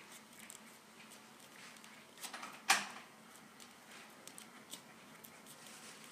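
Origami paper being folded and creased by hand: soft rustles and crinkles of the paper, with one louder sharp click about two and a half seconds in.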